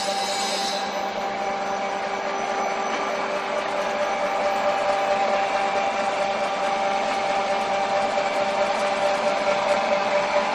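Flat die animal feed pellet mill and its feed line running: a steady motor hum with several fixed steady tones over continuous machine noise, a little louder from about four seconds in.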